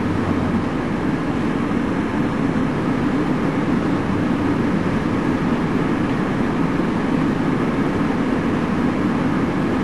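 A steady low rumbling noise, even in level throughout.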